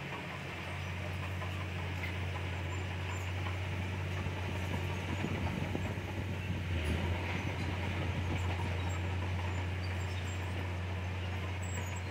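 Komatsu D31PX crawler bulldozer at work, its diesel engine running with a steady low drone and a little louder from about five seconds in.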